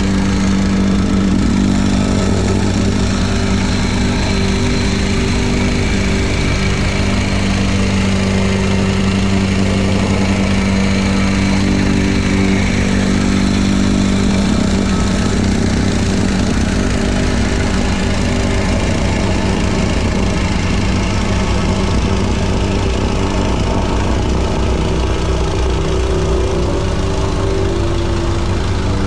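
Engine of a compact construction machine running steadily at work, its pitch shifting slightly now and then.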